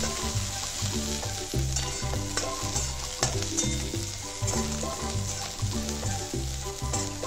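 Chopped green chillies and garlic frying in oil in a metal kadhai, sizzling steadily, with a metal spatula stirring and scraping against the pan in short, repeated strokes.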